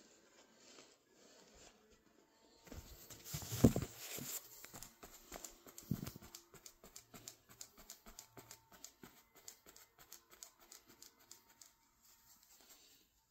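Handling noise from a phone being moved around among toys: a quick run of light taps, knocks and rustles. A louder knock comes about three and a half seconds in.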